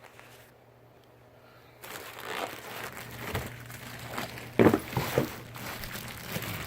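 Packaging being handled: crinkling and rustling with small knocks, starting about two seconds in after a quiet start.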